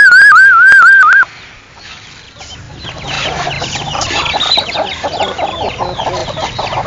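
A loud, warbling whistle for about a second. Then a flock of chickens clucking and calling busily, growing louder.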